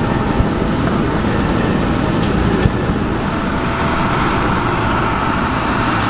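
Bombardier CRJ regional jet's rear-mounted turbofan engines running: a steady rushing rumble, with a whine coming in about halfway through as the jet taxis.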